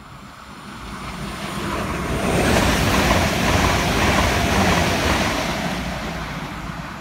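Irish Rail ICR (22000 Class InterCity Railcar) diesel multiple unit passing through the station at speed without stopping. A rush of engine and wheel-on-rail noise swells over the first two seconds, is loudest in the middle as the train goes by, and fades away near the end.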